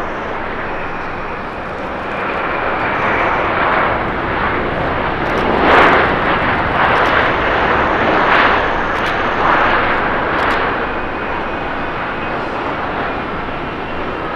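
Airbus A350-900's Rolls-Royce Trent XWB jet engines on the landing rollout just after touchdown: a steady rushing jet noise that swells in a series of surges from about two seconds in, loudest about six seconds in, then eases off.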